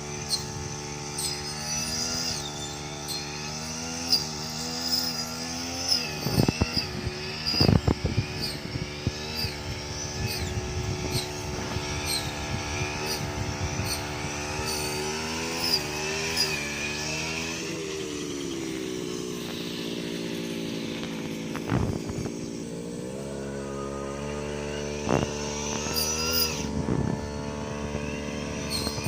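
Two-stroke brush cutter engine running under load as it cuts rice stalks, its pitch repeatedly rising and dipping with the throttle, sagging lower for a few seconds past the middle. A few sharp knocks come as the blade strikes the stalks.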